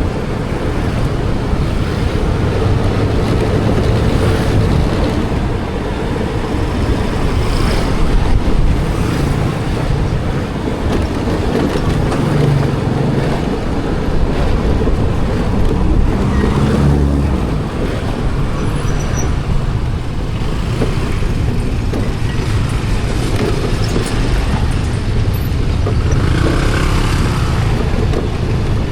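Steady road traffic noise: vehicle engines and tyres, with a low engine drone that swells briefly a couple of times.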